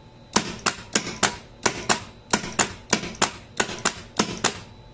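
Control-panel contactors pulling in and dropping out as the crane's pendant push buttons are pressed and released, a rapid, uneven run of about fifteen sharp clicks, often in pairs.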